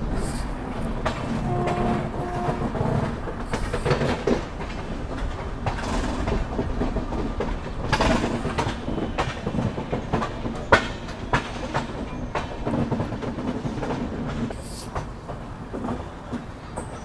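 Passenger train running, its wheels clattering over rail joints with irregular sharp clacks over a steady low rumble.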